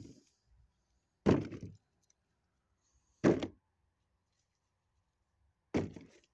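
Apples being dropped one at a time into a black plastic bucket: three impacts about two seconds apart, each dying away within half a second.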